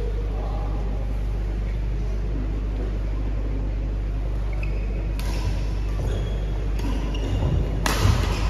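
Badminton rally: rackets strike the shuttlecock with sharp smacks about once a second, starting about five seconds in, the last one the loudest, over a steady low hum.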